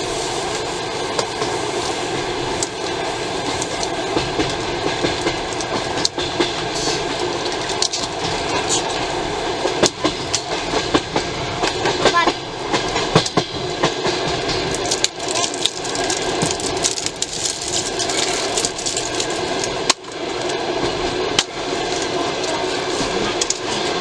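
Steady running noise of a passenger train carriage, heard from inside the compartment, with scattered sharp clicks and crinkles from plastic surprise capsules being twisted open and a plastic bag being handled.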